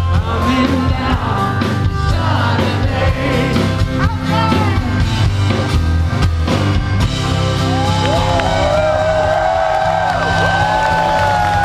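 Live rock band with electric and acoustic guitars, drums and lead vocals, heard through a large open-air PA. About seven seconds in, the drum hits stop and the band holds long sustained notes while voices sing over them.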